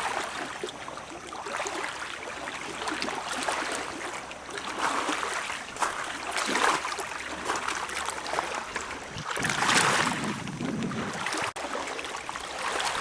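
Small waves lapping and splashing at the edge of a lake shore, in irregular swells.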